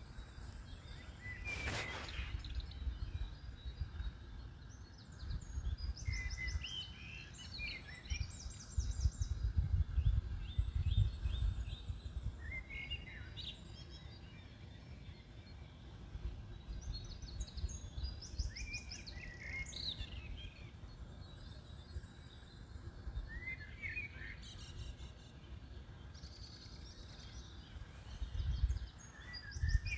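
Small birds chirping and singing on and off, over an uneven low rumble on the microphone. A single sharp click about two seconds in.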